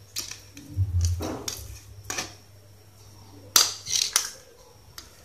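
Sharp clicks and knocks of soldering irons and their plug being handled and set down on a tiled floor, about half a dozen, the loudest a pair near the end, over a low hum that fades out about halfway through.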